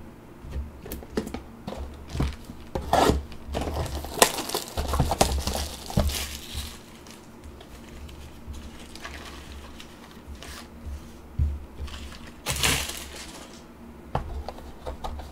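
Hands handling trading cards and a cardboard blaster box: scattered taps, clicks and crinkling rustles, with a longer, louder rustle about twelve seconds in.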